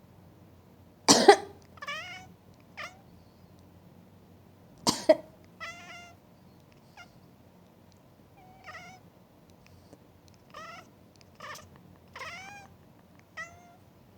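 A person coughs loudly twice, about a second in and again about four seconds later. After each cough a house cat answers with short complaining meows that bend in pitch, about nine in all, going on through the rest. The cat is objecting to the coughing.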